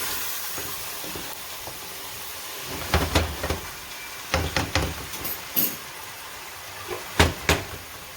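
Chicken cooking in a pot with a steady faint sizzle, and a utensil knocking against the pot about a dozen times from about three seconds in.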